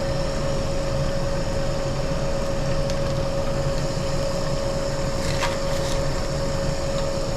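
Small electric water pump running with a steady hum, water flowing through a micro toolbox sluice while paydirt is run through it; a few faint clicks about three and five seconds in.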